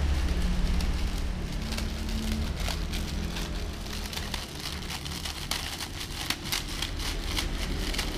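Plastic food packets crinkling and crackling as they are handled, a dense run of small crackles from about two seconds in. A low rumble fades away over the first couple of seconds.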